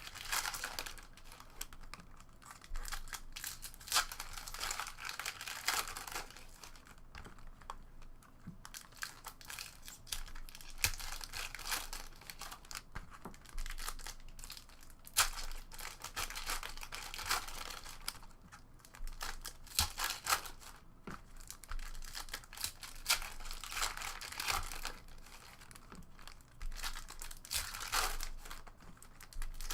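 Hockey card pack wrappers being crinkled and torn open by hand, in irregular bursts every second or two, in a small room.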